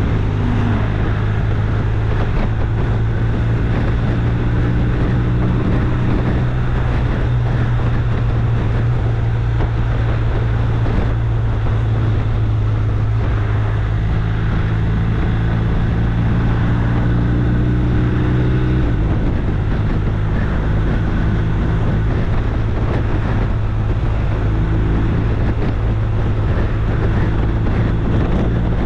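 A motor running at a steady speed, a low drone, with wind noise over it; its pitch shifts slightly about nineteen seconds in.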